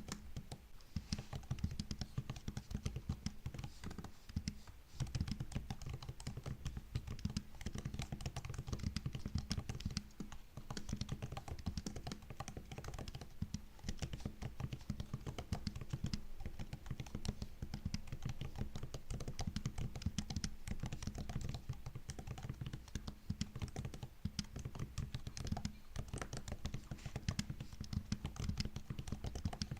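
Continuous fast typing on a MacBook laptop keyboard: a dense run of soft key clicks and taps, with short pauses now and then.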